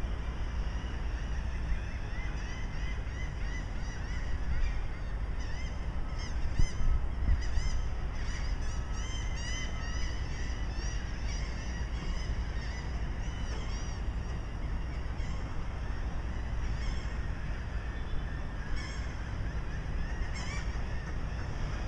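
Birds calling: many short, repeated chirping calls, thickest through the middle, over a steady low rumble. A couple of brief knocks come about six to seven seconds in.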